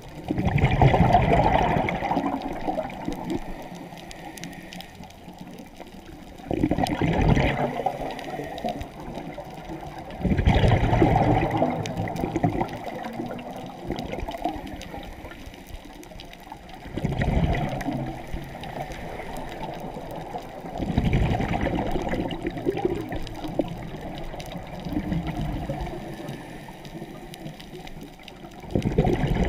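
A scuba diver's exhaled bubbles from the regulator, heard underwater. Six surges of bubbling come a few seconds apart, each starting suddenly and fading, with a low hiss between them.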